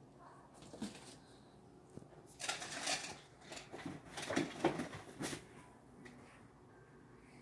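Agitated kittens hissing and growling in a run of harsh bursts that starts about two and a half seconds in and lasts about three seconds; the cats are worked up, tails puffed.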